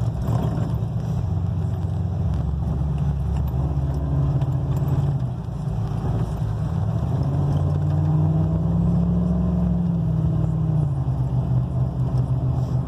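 1999 Ford F-150's engine running as the truck drives, its note rising about seven seconds in, holding, and dropping back shortly before the end.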